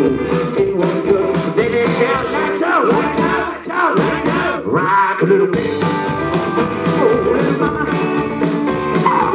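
Live rockabilly band playing: upright double bass, hollow-body electric guitars and a male lead singer. The bass drops out for a moment about halfway through, then the full band comes back in.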